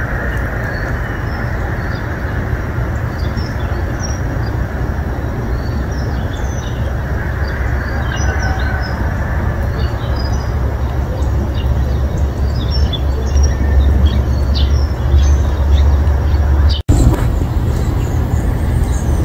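A steady low rumble of outdoor noise, with small birds chirping over it. The sound cuts out briefly near the end.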